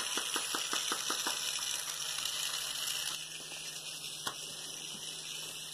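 Small battery-powered toy mechanism clicking rapidly, about six or seven clicks a second, stopping about a second and a half in, over a faint steady motor hum, with one more click about four seconds in.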